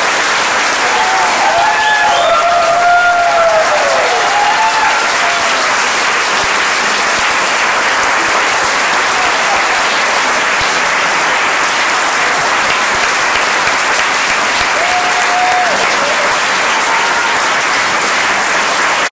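A large audience applauding steadily, with a few cheering calls rising and falling above the clapping in the first few seconds and once more near the end.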